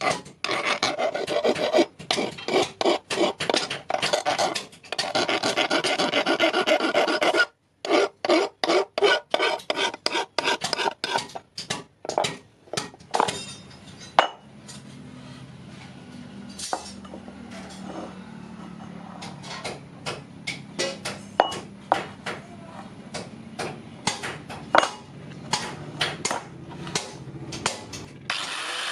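Hand file rasping in quick back-and-forth strokes for the first dozen seconds. Then come fewer, sparser strokes and scattered light ticks over a faint low hum.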